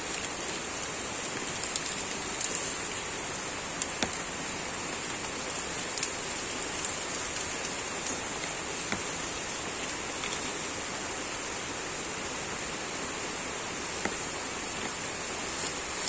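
Steady rain falling: an even hiss, with scattered sharp ticks here and there.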